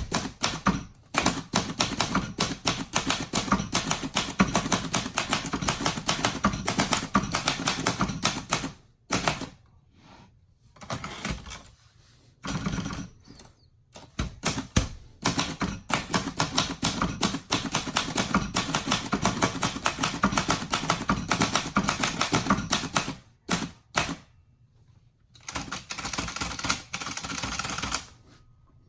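1962 Royal Signet manual typewriter being typed on: long runs of fast, clacking keystrokes, broken by a few short pauses.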